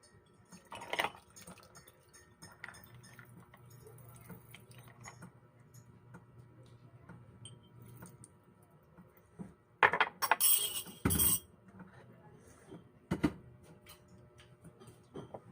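Glass and dishware clinking as they are handled, in scattered light taps. About ten seconds in comes a louder burst of clattering, then a sharp knock.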